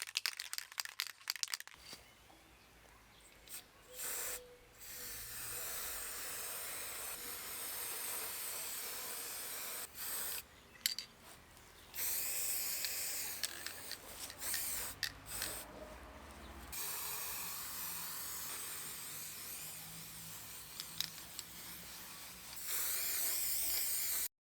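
Aerosol can of white plastic primer hissing in a series of sprays, some short and some several seconds long, after a quick run of clicks in the first second or two.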